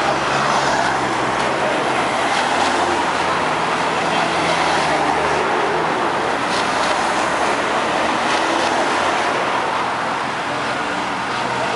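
Cycling team support cars passing one after another at low speed, engines running, with steady noise from a roadside crowd.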